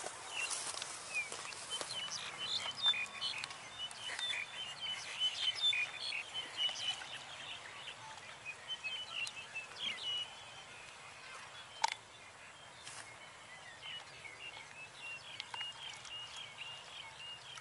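Small birds chirping, many short high chirps that are thickest in the first half and thin out later, over a faint outdoor hiss. A single sharp click about twelve seconds in.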